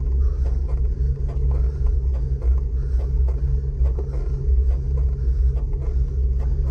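Steady low rumble of wind and road noise while riding a road bike, as picked up by a camera microphone.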